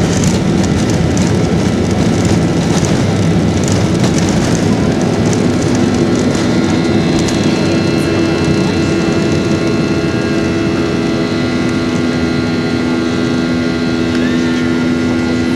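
Jet airliner cabin noise under engine power: a loud, steady engine roar with a rattling rumble that eases about five seconds in, leaving a smoother drone with steady hum tones.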